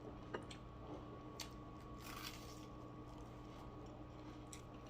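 Faint chewing of fried food, with a few soft clicks, over a steady low hum.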